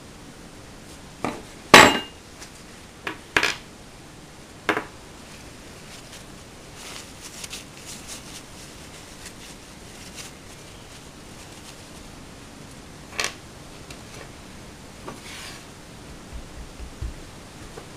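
Small metal airsoft pistol parts clacking and clinking as they are handled and set down on a wooden table. There are several sharp knocks in the first five seconds, the loudest about two seconds in, and another around thirteen seconds, with faint ticks and a soft rustle in between.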